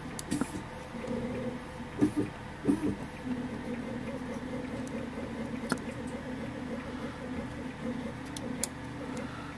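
Small scratching and clicking handling noises as fingers and a cotton swab work on a floppy drive's metal mechanism, a few sharper clicks among them. A steady low hum runs underneath.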